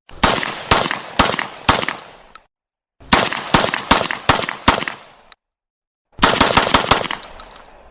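Shotgun fired in quick succession in three strings, about four to six shots each, the shots a half second or less apart, each ending in a short echoing tail. Brief silences fall between the strings.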